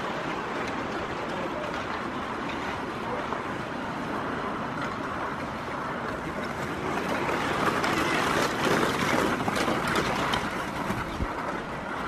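Ice skates scraping and carving across a rink, with a few short clacks of sticks and puck. It grows louder about seven seconds in for a few seconds as skaters pass close by.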